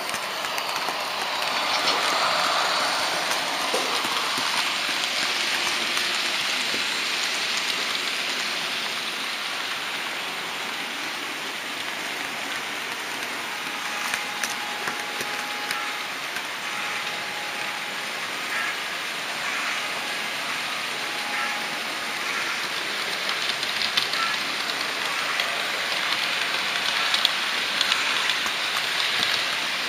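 Model train running along the track, heard from on board: a steady rushing hiss from the small wheels and motor, with scattered clicks from the track.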